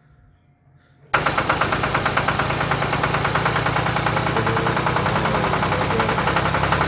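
Tractor engine sound effect: an engine running with a rapid, even chugging of about seven or eight beats a second. It starts suddenly about a second in and cuts off abruptly.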